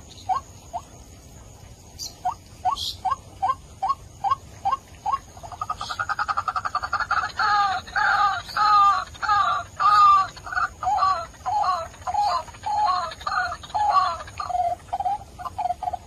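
White-breasted waterhen calling: short rising notes about two a second, then from about five seconds in a fast run of notes that builds into loud, repeated two-note calls, settling into lower, softer notes near the end.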